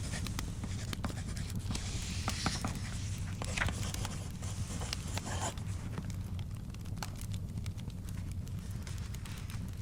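Layered study ambience: a fire crackling with scattered pops over a steady low rumble, and bursts of scratching on paper, as of notes being written, in the first half.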